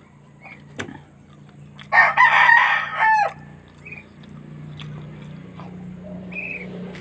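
A rooster crowing once, loud and about a second and a half long, with a falling end. A low steady hum runs underneath.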